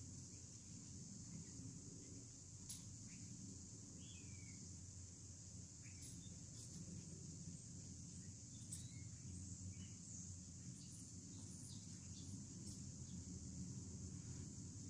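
Faint outdoor ambience: a steady high insect drone, with a few faint sharp clicks scattered through it from a dog chewing a crust of bread.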